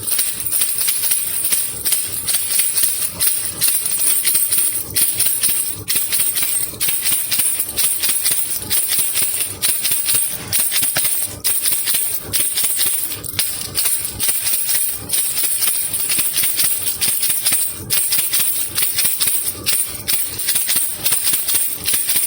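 Baby rattle (khulkhula) shaken continuously in an even rhythm: a dense shaking rattle with a bright, high jingle over it.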